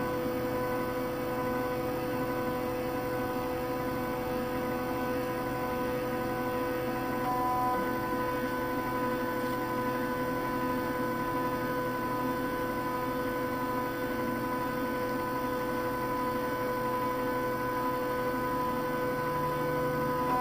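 Stepper motors of a home-built CNC hot-wire foam cutter humming steadily as they drive the lead screws through a slow cut, several steady tones together. A higher tone joins about seven seconds in.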